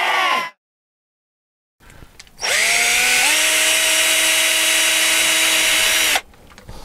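Cordless drill spinning up about two and a half seconds in, running at a steady speed for nearly four seconds, then stopping. Before it, a short sound falling in pitch cuts off into a second or so of dead silence.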